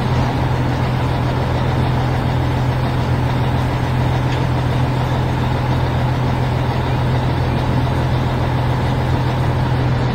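Heavy vehicle engine running steadily with a constant low hum, loud and unchanging throughout.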